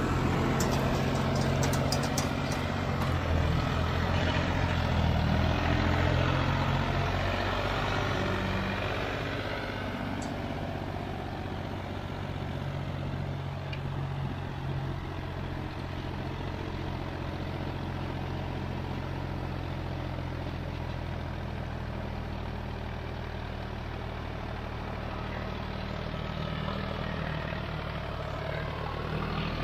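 Solis 5015 tractor's diesel engine running steadily under load, pulling a 16-disc harrow with its discs set fully open in second gear. Loudest at first, growing fainter after about eight seconds as the tractor draws away.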